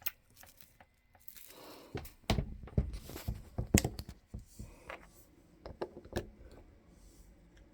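Scattered small clicks, taps and short plastic rustles of hands handling small dye bottles and bubble wrap on a tabletop.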